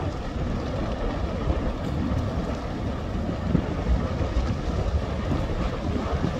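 Erupting volcanic vent fountaining lava: a steady deep rumble, with a few brief louder knocks.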